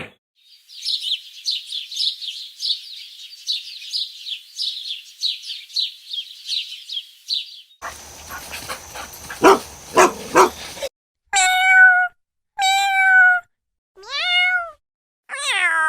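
A run of rapid, high-pitched bird chirps, then a few seconds of a harsh, noisy animal sound. After that come four separate cat meows, each under a second long.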